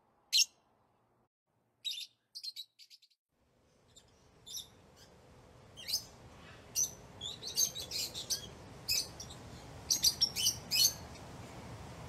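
Lovebirds chirping. One sharp high-pitched chirp is followed by a short run of chirps about two seconds in. Then come more and more frequent chirps over a background hiss that fades in from about four seconds in.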